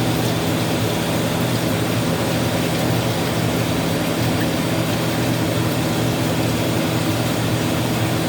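Kitchen tap running steadily, as for washing hands after handling raw eggs: an even rushing noise with a low hum under it.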